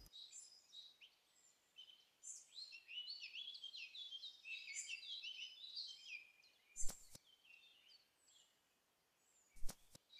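Faint birdsong: a songbird sings a run of quick, varied chirping notes. Near the end it is broken by two short sharp sounds a few seconds apart.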